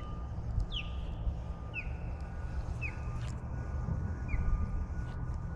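A bird calling repeatedly with short, high chirps that fall in pitch, about one a second, over a steady low rumble.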